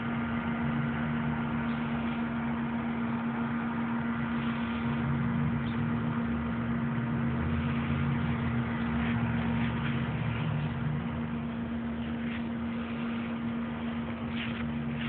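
A steady mechanical hum holding one pitch, over a low rumble that rises and falls.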